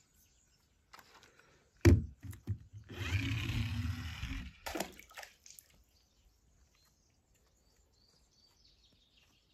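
A toy car dropping into a swimming pool: a sudden splash about two seconds in, then water sloshing and bubbling for about a second and a half.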